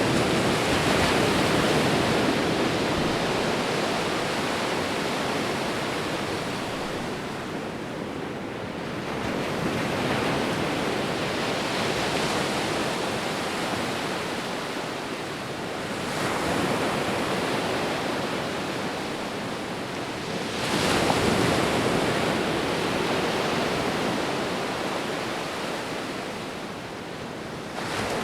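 Sea waves rolling in: a steady rushing noise that swells and fades several times, with the loudest surge about three-quarters of the way through.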